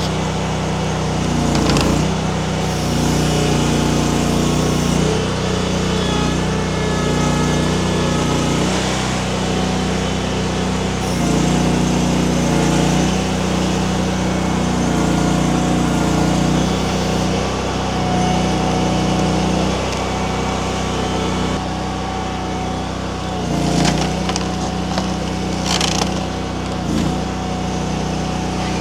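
Mini skid steer engine running steadily under hydraulic load while driving a wood splitter attachment through pecan rounds, its tone shifting as the hydraulics work, with a few sharp knocks near the end.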